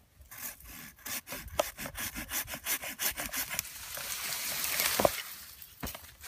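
Hand pruning saw cutting through a live cherry limb in quick back-and-forth strokes, the rasp getting denser and louder. About five seconds in there is a sharp crack as the partly cut limb gives way and breaks off, the relief cut that takes the branch's weight off before the final clean cut.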